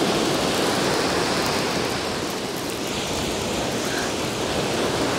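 Surf washing steadily onto the shore, a constant rushing noise with no distinct breaks.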